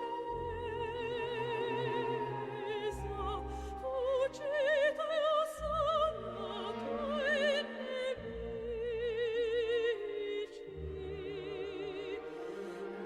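Operatic music: a singing voice with strong vibrato over orchestral accompaniment.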